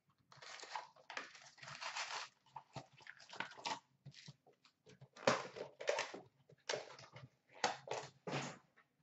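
Cardboard box of hockey card packs being opened by hand: the box flaps and inner cardboard scraping and the wrapped packs rustling as they are pulled out and stacked, in a run of short, sharp bursts.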